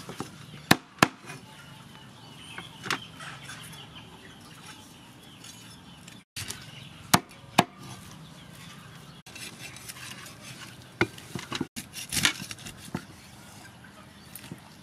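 Sharp chops of a cleaver striking a wooden chopping block, coming singly and in pairs with pauses between, as a whole fish is cut up; softer handling sounds of the fish on the board fill the gaps.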